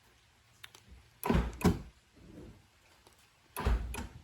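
Power door locks of a 2001 Jeep XJ Cherokee clunking as they are worked: two sharp clunks close together about a second in, and another clunk near the end. The passenger-door lock is jammed and won't lock.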